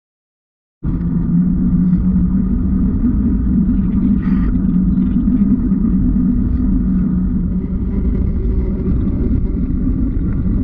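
Muffled, steady low rumble of wind and road noise from riding a bicycle on a road, picked up through a GoPro waterproof housing. It starts abruptly about a second in and carries a constant low hum.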